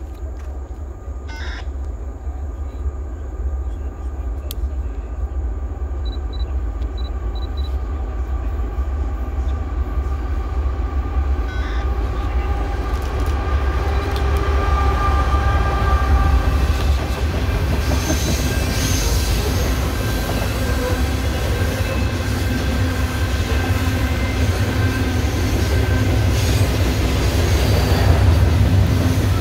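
Norfolk Southern freight train at a rail yard, its low rumble growing louder over the first half and then holding steady.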